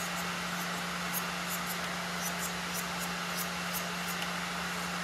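Electric nail drill filing a fingernail over a running nail dust collector: a steady motor hum with an even hiss, and scattered faint light ticks.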